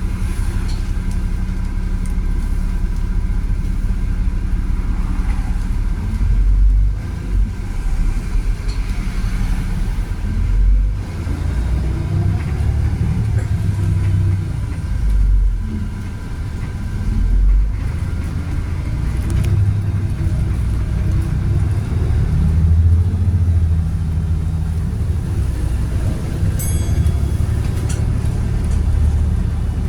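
Volvo B7RLE bus with a Voith automatic gearbox under way, its engine running with a low rumble that swells and eases every few seconds as the pitch rises and falls.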